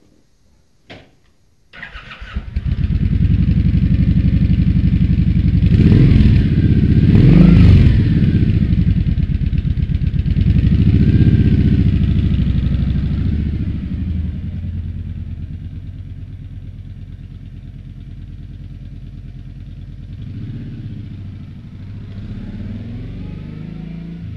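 2010 Kawasaki Nomad's V-twin on its stock exhaust pipes, started about two seconds in after a click, idling with a low throb, revved twice, then pulling away and fading as the bike rides off, swelling a little again near the end.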